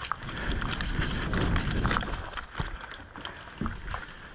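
Rustling and irregular clicks and knocks of a player on the move with airsoft gear, with no steady rhythm.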